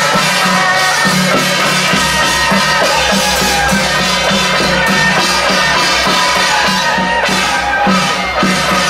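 Loud procession music: sustained melody notes over a steady beat of drums and percussion.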